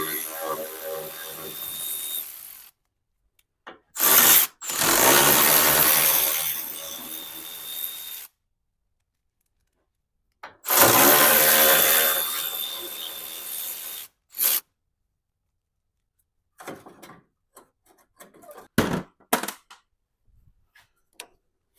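A handheld power tool runs in three bursts of a few seconds each, then a scatter of light clicks and knocks follows.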